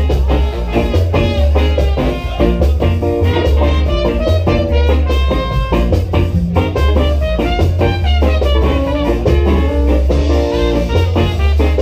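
Live ska band playing an instrumental passage: trombone and trumpet carry the melody over electric guitar, keyboard and drum kit, with a heavy, rhythmic low end.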